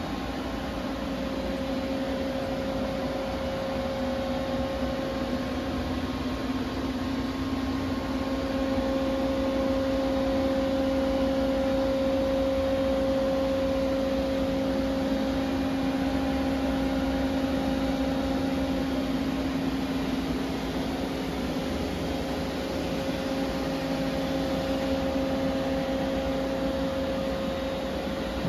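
Doosan Z290SMY CNC turn-mill standing powered up, giving off a steady mechanical hum with a low droning tone.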